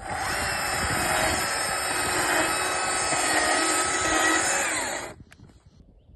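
Stihl chainsaw running at high revs and cutting into wood, with a steady engine pitch. It cuts off suddenly about five seconds in.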